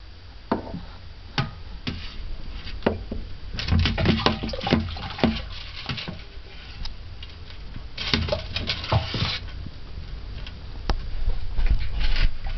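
Scuffling in a glass tank as a Morelet's crocodile goes after a live rat: scattered sharp taps and knocks, in two busier flurries about four and eight seconds in, over a low steady rumble.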